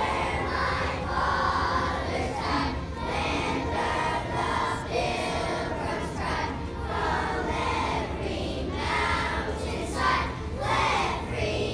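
A large group of elementary-school children singing together in unison as a choir, with held sung notes.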